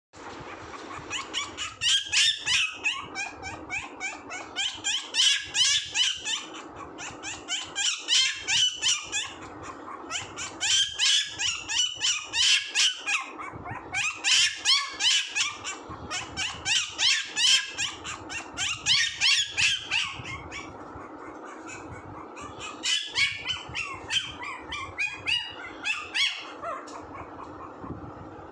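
Pomeranian puppy yapping: rapid runs of high-pitched barks in bouts of a second or two, with short pauses between bouts.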